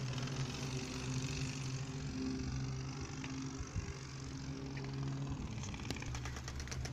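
Playing cards clipped to a bicycle with clothespins flapping against the turning wheel's spokes, a fast rattling clatter like a small motorbike engine.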